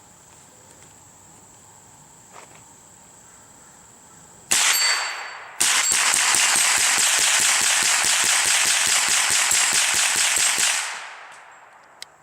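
Smith & Wesson M&P 15-22 semi-automatic .22 LR rifle firing: a single shot about four and a half seconds in, then a second later a rapid string of shots at about five a second for some five seconds, dying away after the last one.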